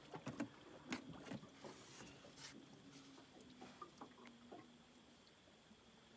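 Near silence, with faint scattered clicks and knocks, most of them in the first few seconds.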